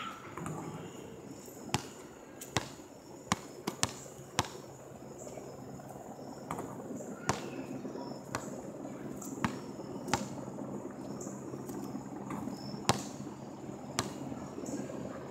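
A basketball bouncing on an asphalt court and striking the hoop: sharp, irregularly spaced thuds, several in quick succession about three to four seconds in. A steady chorus of insects continues underneath.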